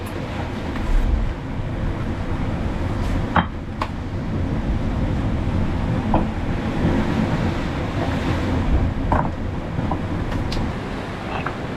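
Steady low rumble of wind and surf, with wind buffeting the microphone and a few scattered light clicks and knocks.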